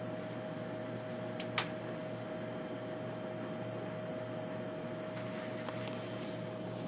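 Steady room hum with a faint steady tone, and one short click about one and a half seconds in.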